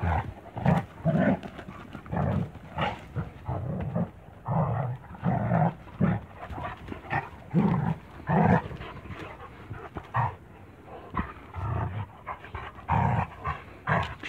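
Two young Kangal shepherd dogs play-fighting, with low growls and panting in short irregular bursts, about one or two a second.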